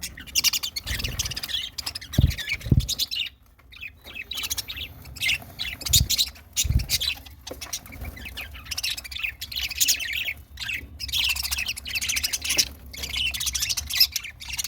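Budgerigars chirping and chattering in quick, busy bursts, with a short lull a few seconds in. Four low thumps come in two pairs, about 2 and 6 seconds in.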